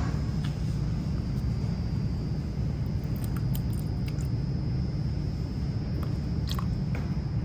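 A steady low rumble with a faint high whine over it, and a few light clicks of a plastic spatula against a stainless steel pot.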